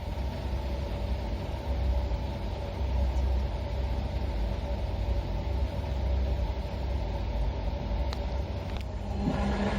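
Front-loading washing machine running its wash cycle with sneakers tumbling inside: a steady low rumble with a hum, which gets louder and busier, with a couple of clicks, near the end.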